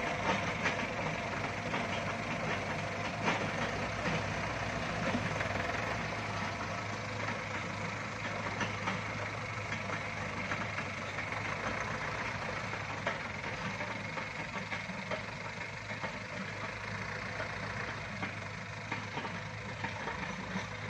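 Yanmar mini excavator's diesel engine running steadily, with occasional light clicks and scrapes.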